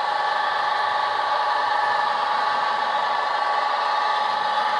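HO-scale model trains running on the layout: a steady whir from their small electric motors and wheels on the track.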